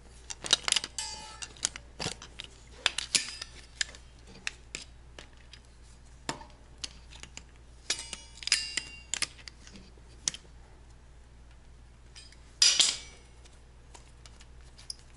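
Locking pliers clamped on a broken exhaust stud in an LS engine's aluminum cylinder head, making irregular metal clicks, clanks and squeaks as the weld-built-up stud is worked loose, with a louder clatter near the end.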